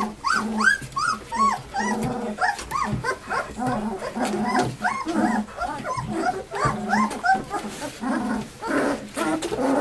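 A litter of two-week-old Alaskan Malamute puppies squeaking and whining, many short high calls that rise and fall, several a second and overlapping.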